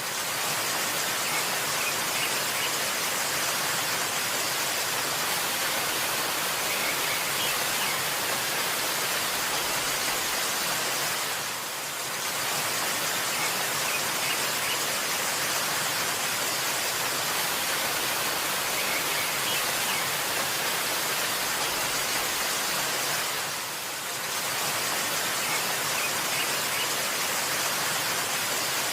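Waterfall: a steady rushing hiss of falling water, dipping briefly twice, about twelve seconds apart.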